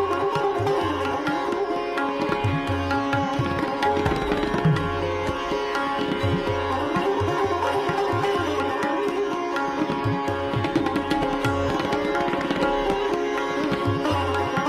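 Background instrumental music in an Indian classical style: plucked strings over a steady drone, with a repeating hand-drum rhythm.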